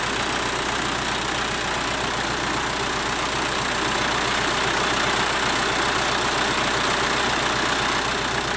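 Fiat 640 tractor's four-cylinder diesel engine running steadily under load, driving a 7-inch irrigation water pump, with water gushing from the pump's delivery pipe into a concrete tank.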